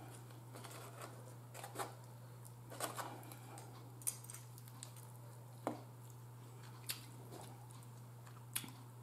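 Quiet eating and food-handling sounds: a handful of short, soft clicks and taps, spaced a second or so apart, as a black plastic fork and fried chicken wings are handled in a foam takeout box. A faint steady low hum runs underneath.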